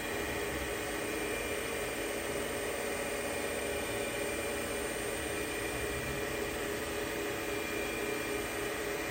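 SWI Trak DPMV5 CNC bed mill running under power: a steady whir with a few constant tones from the spindle and axis drives, unchanging throughout.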